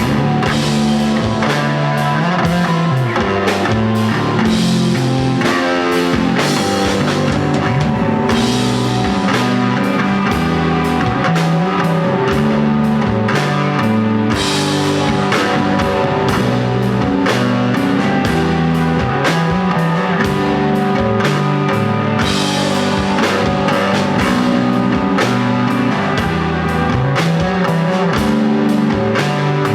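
Live instrumental desert rock: electric guitar and drum kit over a stepping bass line, played loud and continuously, with cymbals washing brighter in some passages.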